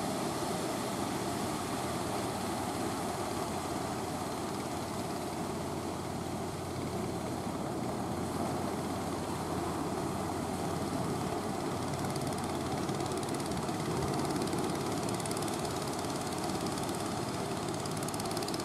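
Small engine of a wooden outrigger fishing boat running steadily at an even pitch.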